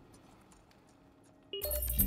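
Quiet film score dying away. About one and a half seconds in, a short electronic beep steps up in pitch and a loud electronic music swell cuts in suddenly.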